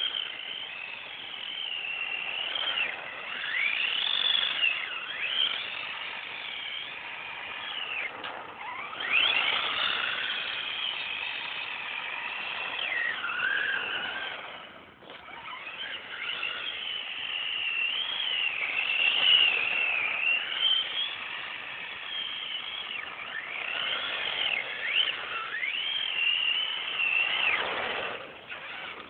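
Tamiya TL-01 radio-controlled drift car's electric motor and drivetrain whining, the pitch sweeping up and down over and over as the throttle is blipped through slides, with a dip near the middle.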